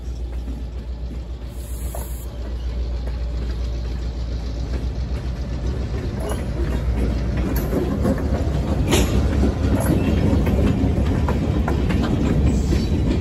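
Short freight train behind EMD diesel road-switcher locomotives, drawing closer. A low diesel rumble grows louder over the second half, with the wheels clicking and knocking over rail joints and one sharp knock about nine seconds in.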